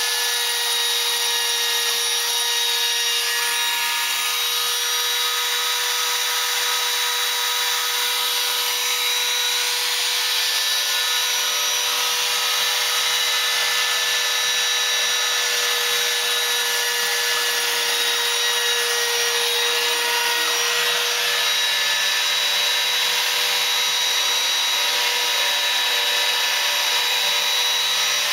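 Home-built CNC router's spindle running steadily with a constant high whine while milling, with a continuous rasping cutting noise.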